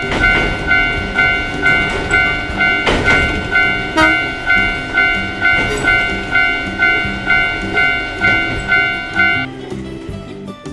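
Japanese-style railroad crossing bell dinging in an even repeating rhythm while a train rushes past, over cheerful background music. The bell stops near the end.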